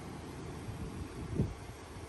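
Wind buffeting the microphone, an uneven low rumble, with one brief low thump about a second and a half in.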